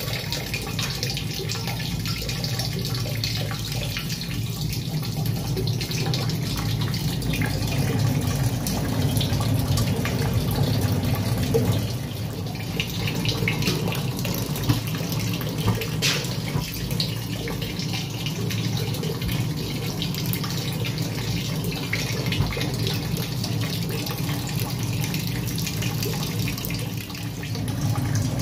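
Water running in a thin stream from the hose of a homemade stove-coil water heater into a bucket, splashing and dripping, over a steady low rushing noise.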